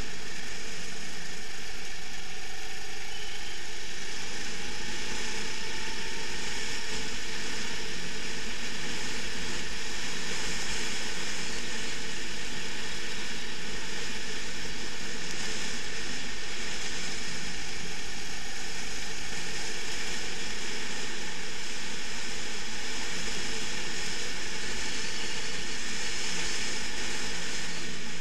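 Onboard sound of a racing kart lapping at speed: the kart's engine running hard with wind and road noise on the on-board microphone. The sound is a steady, even rush at a constant loudness.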